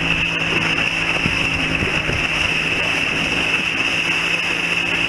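Motorboat engine running steadily at cruising speed, a constant hum that holds one pitch, under the rush of wind and water past the hull.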